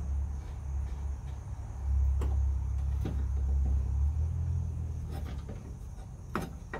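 A steady low rumble, loudest in the middle and fading out about five seconds in, with faint metallic clicks as the clamp holding slack in the parking brake cable is worked off under the truck, and one sharper metal click near the end.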